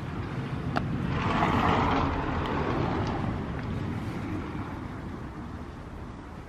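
A vehicle passing by: a rushing noise that swells about a second in, peaks soon after and slowly fades away.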